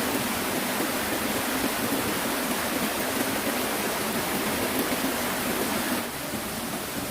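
Steady rushing of water in a forest stream. The sound drops suddenly to a lower level about six seconds in.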